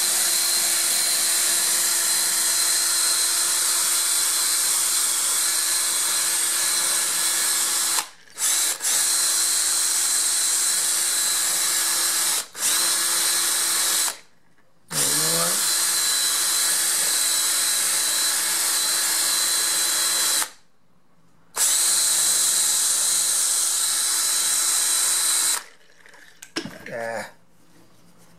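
Power drill spinning a short-wire shaping disc against foam rubber with a steady motor whine. It stops briefly three or four times and spins back up with a rising pitch, then stops for good near the end.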